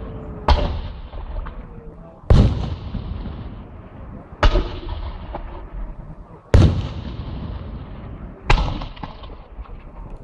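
Fireworks petards going off: five sharp bangs about two seconds apart, each trailing off in a long rumbling echo.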